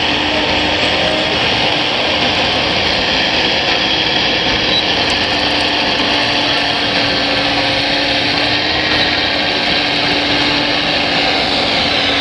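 Small electric motors and gearboxes of radio-controlled model construction machines running, a steady whirring whine with a faint low hum, changing little throughout.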